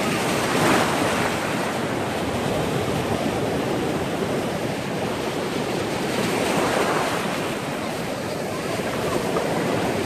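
Sea surf washing in over the shallows at the water's edge: a steady rush of breaking, foaming waves, swelling a little about a second in and again around seven seconds.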